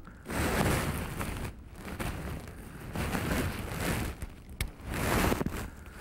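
Wind buffeting the microphone in gusts, swelling and fading several times, with one sharp click about four and a half seconds in.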